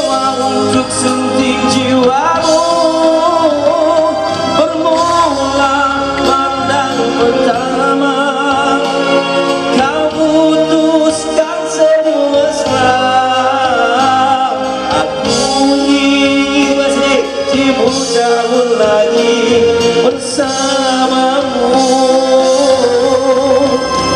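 A man singing a Malay love song live into a microphone, backed by a small band with electric bass guitar and keyboard; his held notes waver with vibrato.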